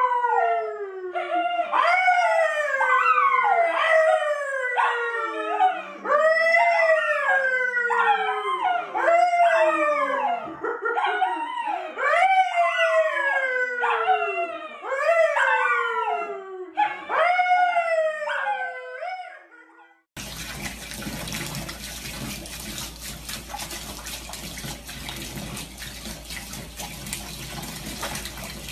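A man and a brown poodle howling together, a string of falling howls about one every second or two, stopping suddenly about twenty seconds in. Then a tap running into a bathtub, a steady rush of water.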